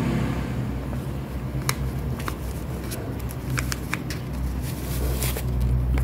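Hands handling a ball of crochet thread and its label, with scattered light clicks and rustles, over a steady low hum that grows louder near the end.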